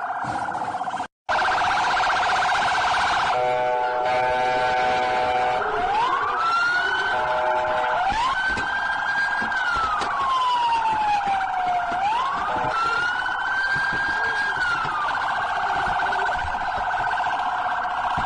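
Police car electronic siren cycling through its modes. A fast warbling yelp cuts out for an instant about a second in, then returns. A steady chord of several tones holds for about two seconds, then slow wails rise and fall about twice, and near the end the siren goes back to the fast warble.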